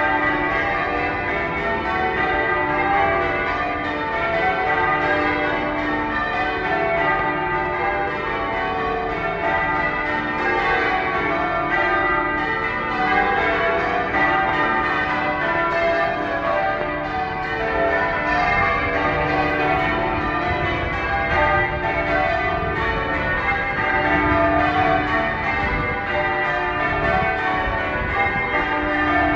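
Manchester Cathedral's church bells being rung in change ringing: a steady, continuous stream of overlapping bell strikes of several pitches, each ringing on into the next.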